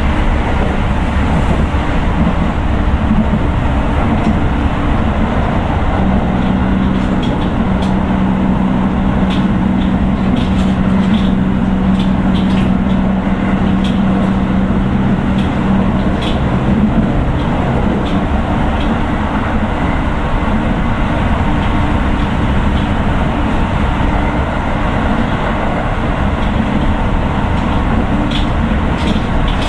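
Running sound of a Keio 9000 series electric train with Hitachi IGBT VVVF inverter drive: a continuous rumble of wheels on rail with scattered short clicks. A steady low motor hum sounds for a stretch in the middle and then drops away about 18 seconds in.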